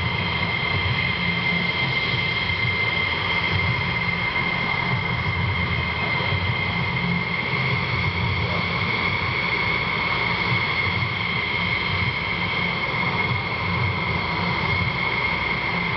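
Jet engines of F-16 fighters running on the ground at idle: a steady high whine over a low rumble.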